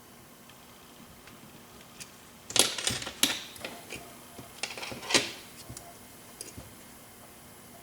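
Lock picks and tension tool clicking and rattling in a 7-pin Corbin Russwin lock cylinder: a quiet start, then a cluster of sharp metallic clicks from about two and a half seconds in to just past five seconds, followed by a few faint ticks.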